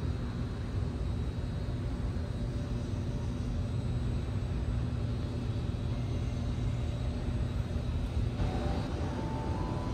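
Steady low rumble with a faint constant hum: the background drone of a large indoor hall. A few faint musical notes come in near the end.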